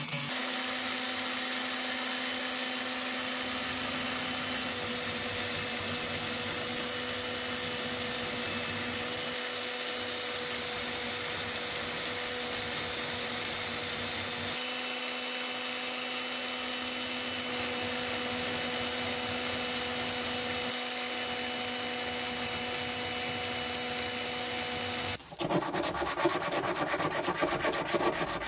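Cordless drill running at a steady speed, spinning a wire wheel brush that cleans a small metal grinder part held against it. Near the end the motor stops and louder, uneven rubbing takes over: the part is sanded by hand on sandpaper.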